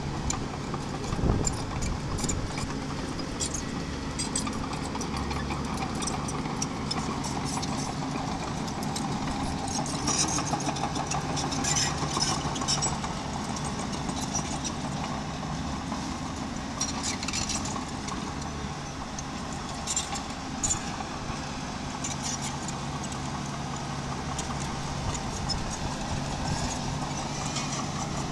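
Diesel engine of a miniature bulldozer running steadily as it works, with scattered clanks and rattles, most of them a third of the way in and again past the middle.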